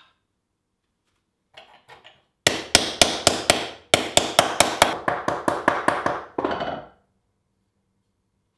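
Ball-peen hammer striking a small piece of sheet metal in the hollow of an end-grain wooden stump, dishing it. A couple of light taps come first, then a quick run of ringing blows at about four to five a second that stops about seven seconds in.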